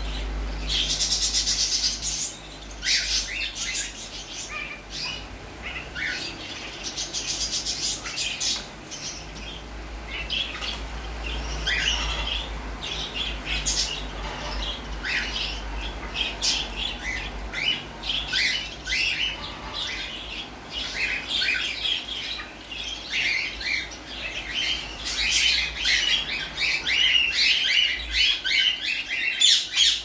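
Crimson rosellas chattering with many short, high chirps and squawks, busiest and loudest near the end.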